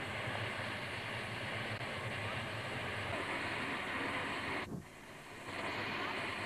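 Steady rushing hiss from the narrow-gauge steam tank locomotive U 43 while it takes water: water running from the water crane into its tank, mixed with steam venting from the engine. The noise drops away for under a second just before five seconds in, then resumes.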